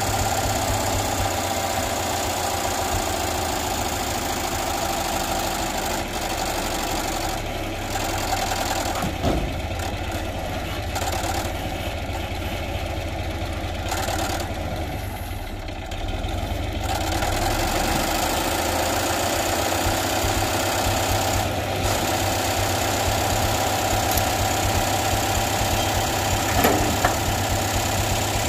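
A vehicle engine idling steadily, running a little louder from about two-thirds of the way through.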